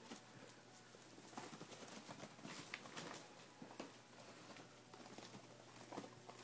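Faint rustling and pattering of baby guinea pigs scurrying over wood-shaving bedding, a scatter of small irregular clicks and scuffs.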